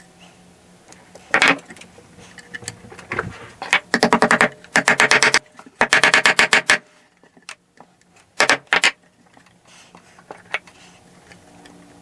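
Several quick runs of rapid, light metallic taps: a fret hammer tapping fret wire down into the slots of a hardwood fretboard. A faint steady low hum runs underneath.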